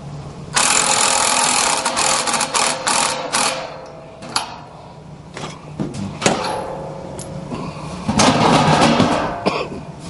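Cordless driver spinning a socket on a long extension inside a furnace blower wheel, backing out fasteners to free the blower motor. It runs in two long bursts, near the start and again near the end, with metal clicks and clatter between.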